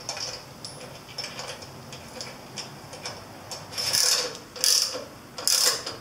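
Ratchet wrench clicking in three short runs in the second half, each a quick back-stroke of the handle while a fairing bracket bolt is run in at the headlight mount. Light metal ticks come before it.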